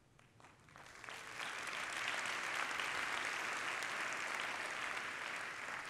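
Audience applause: a few scattered claps at first, swelling within about a second and a half into steady applause.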